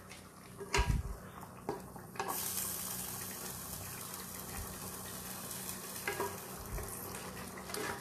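A spatula knocks against a pan of thick chicken chana dal, once loudly about a second in and once more lightly. From about two seconds in the simmering, thickened dal gives a steady sizzling hiss, with a few light scrapes of the spatula.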